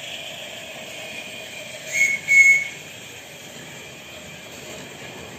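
Whistle of a live-steam Märklin BR89 model locomotive, blown as two short toots about two seconds in, each a single high steady tone, the second a little longer. A steady background noise runs under it.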